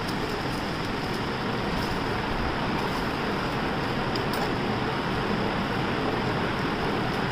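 Water with tulsi leaves boiling in a pan on a stove, making a steady rushing noise.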